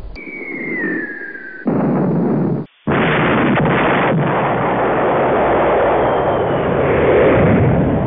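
Bomb explosion sound effects: a whistle that falls steadily in pitch for about a second and a half, then a blast that is cut off short after a second. A second, longer explosion follows about three seconds in, rumbling on and fading near the end.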